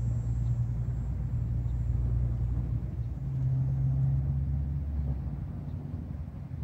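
Steady low rumble of distant motor traffic, with an engine hum that steps up in pitch about three seconds in and fades back near the end.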